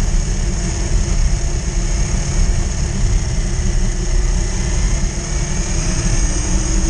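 Axial Yeti electric RC car running along a paved street, heard through its onboard camera. A steady low rumble from the tyres and drivetrain runs under a thin, constant high whine.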